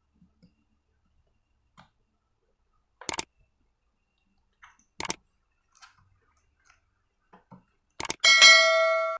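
Sharp clicks and light taps of parts and tools being handled while a laptop is taken apart, three clicks a couple of seconds apart. Near the end a metal object knocks down and rings brightly for about a second.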